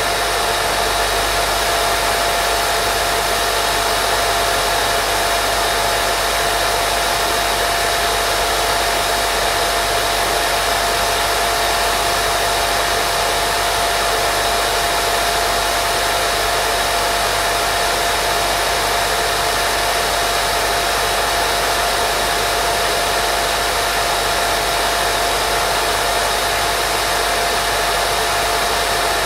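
Steady white noise made for baby sleep: an even, unchanging hiss with a faint steady tone in it.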